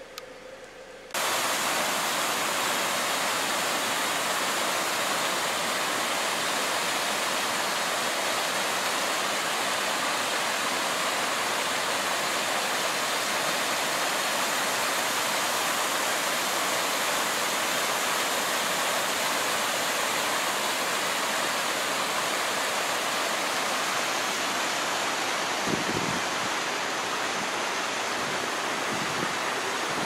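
Rain-fed cascade of water tumbling over rocks: a steady, loud rush of water that cuts in abruptly about a second in.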